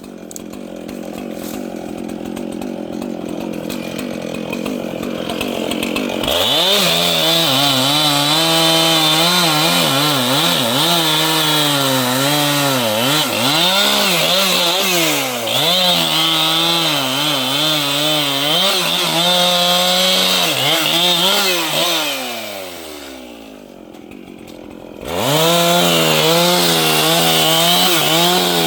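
Large two-stroke chainsaw at low revs, then throttled up about six seconds in and cutting wood, its pitch dipping and recovering under load. Near the end it drops off for a couple of seconds, then revs up again.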